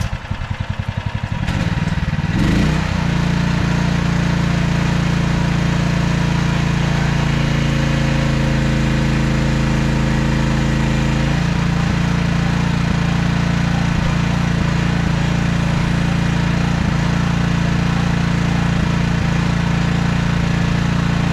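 Mini excavator engine settling after starting, then running steadily and loudly. A higher tone joins it for about four seconds in the middle.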